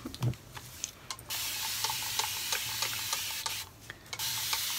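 A steady hiss that comes on suddenly a little over a second in, breaks off for about half a second near the end, then starts again.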